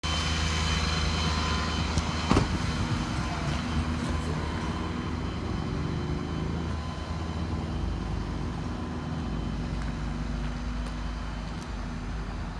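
A vehicle engine idling close by, a steady low hum, with a couple of sharp knocks about two seconds in.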